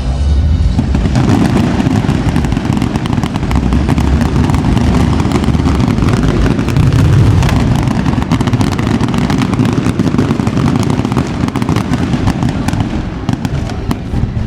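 Fireworks display: a dense, continuous barrage of bangs and crackles over a low rumble of aerial shell bursts, building about a second in and easing near the end.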